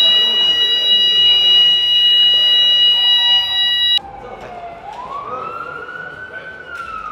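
Building fire alarm sounding a loud, steady high-pitched tone that cuts off suddenly about four seconds in, giving way to a quieter emergency vehicle siren wailing, its pitch rising and then slowly falling.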